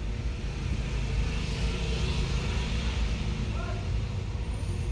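Car engine running steadily with a low rumble and a thin, steady whine.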